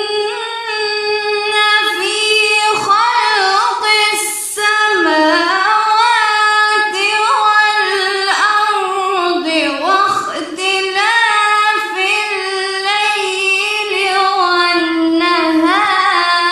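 A female voice reciting the Qur'an in a melodic tajweed style, drawing out one long ornamented phrase with wavering turns around a held note and only brief breaks for breath.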